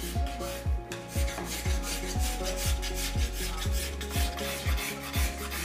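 Hand scraper rasping back and forth along a wooden chair rail, stripping off old varnish in quick repeated strokes. Underneath is background music with a steady kick-drum beat about three times a second.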